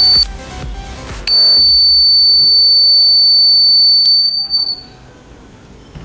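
Piezo buzzer of a homemade clothespin door alarm, run off a 9V battery, sounding one loud steady high-pitched tone: it cuts off a quarter second in, then sounds again about a second later for some three and a half seconds before fading out. This is the alarm going off when the stick is pulled from the clothespin and its contacts close. Background music plays underneath.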